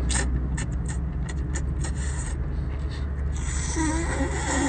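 Close-up wet eating sounds of a person slurping a cooked octopus tentacle into the mouth and chewing it: a run of short, wet smacking clicks over the first two seconds, then a longer slurp near the end.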